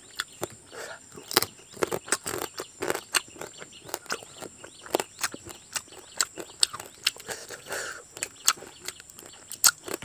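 Close-up crunching and cracking of boiled crab shell as it is broken apart by hand and chewed: sharp, irregular cracks several times a second.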